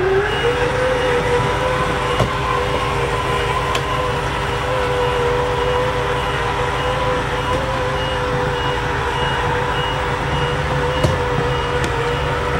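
Electric slide-out motor of an American motorhome whining steadily as it pushes the first slide-out room outward, over the low hum of the idling engine. A faint, high, evenly repeated beep runs alongside.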